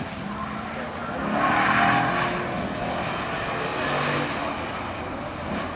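Lexus IS-F's 5.0-litre V8 running hard on track. It swells about a second in, is loudest around two seconds, then eases off.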